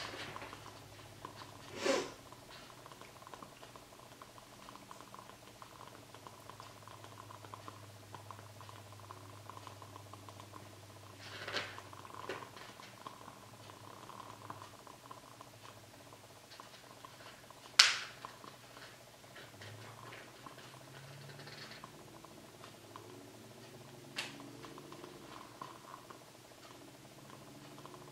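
Quiet room with the occasional soft rustle of textbook pages being handled and turned, and a few sharp clicks or taps on the table. The loudest click comes about two-thirds of the way through.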